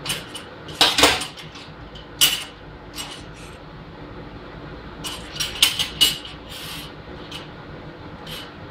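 Sharp metal clinks and clanks of steel parts being handled and knocked against a metal surface. The clinks come in small clusters, about a second in, twice near the middle and several more a little past the middle, each ringing briefly over a steady low background hum.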